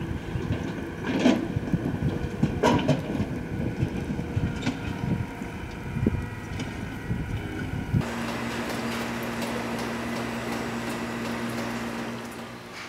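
Wind rumbling and gusting on the microphone, with a few knocks. About eight seconds in it cuts off suddenly to a steady low hum.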